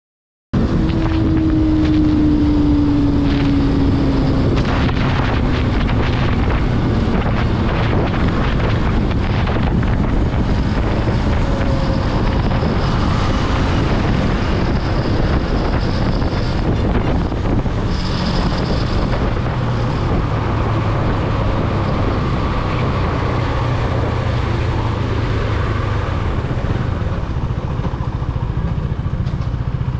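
KTM 250 Duke's single-cylinder engine running at road speed under heavy wind rush on the microphone, its note falling over the first few seconds as the bike comes down from top speed, then steady while riding on through traffic.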